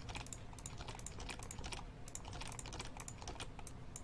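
Computer keyboard typing: faint, quick, irregular keystrokes as a price is typed into one form field after another.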